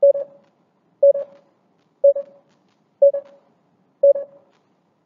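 Countdown timer sound effect beeping once a second, five short mid-pitched beeps in a row, each fading quickly, the beeps stopping about four and a half seconds in.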